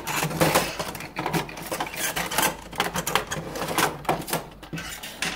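Irregular clicks, knocks and rattles of an Epson XP-342 inkjet printer's plastic housing and inner parts as a side panel is worked loose and pulled off by hand.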